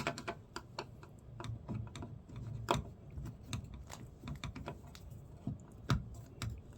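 Irregular light clicks and taps, with a couple of louder knocks, from small hard mirror parts being handled.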